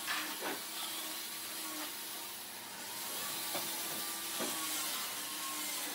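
Steady workshop background hiss with a faint hum, and a few light clicks scattered through it.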